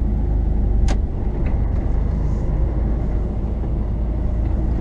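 Tipper truck's diesel engine and road noise heard from inside the cab while driving, a steady low rumble, with one short click about a second in.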